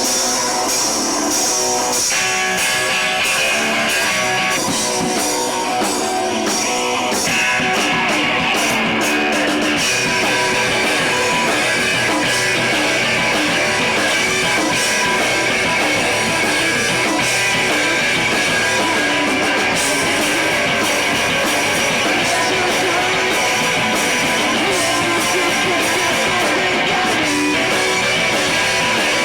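Live rock band playing a song: distorted electric guitars over a drum kit, loud and steady, with no singing yet.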